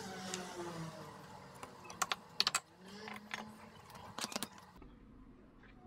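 Small clicks and taps of a stack of thin cards and a plywood block being handled and set against a crosscut sled's fence. A cluster of sharp clicks comes about two seconds in and another a little past four seconds.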